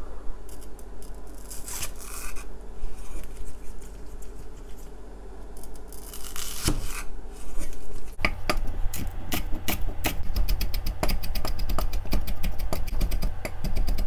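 Cleaver cutting a large green onion on a wooden cutting board: a few slow slicing strokes at first, then rapid, even chopping from about eight seconds in as the onion is minced.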